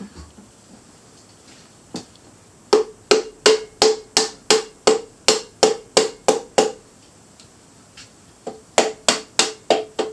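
Hammer blows on metal parts of a big-block Chevy 454 engine being torn down: a single hit, then a run of about a dozen sharp, ringing strikes at roughly three a second, a pause, and about five more near the end.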